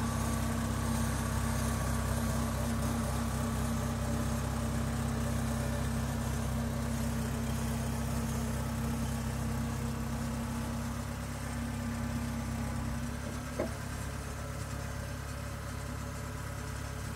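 Kubota Harvest King 2 crawler combine harvester's diesel engine idling steadily with a constant hum. About three-quarters of the way through it gets a little quieter, with a single short click.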